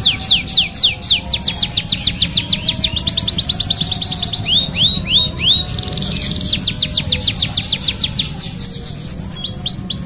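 Domestic canary singing: long rapid trills of repeated downward-sweeping notes, broken by a few slower hooked notes about five seconds in and again near the end, with a short buzzy stretch about six seconds in.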